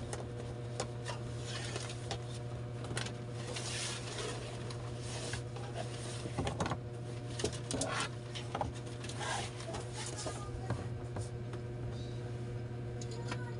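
Things being handled and shifted by hand: scattered rustles, light knocks and scrapes, busiest around the middle, over a steady low hum.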